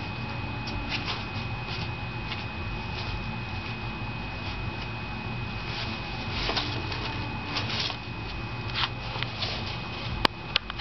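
Sheets of paper rustling and crinkling in irregular bursts as a cat shifts and burrows in a box of recycling paper, with a few sharp clicks near the end.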